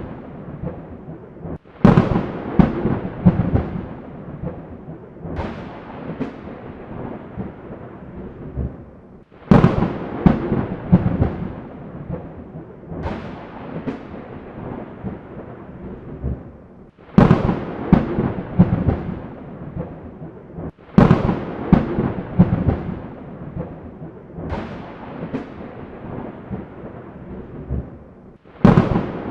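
Thunderstorm with repeated thunderclaps, about eight in all a few seconds apart. Each one is a sharp crack that fades into a rolling rumble, over a steady wash of rain.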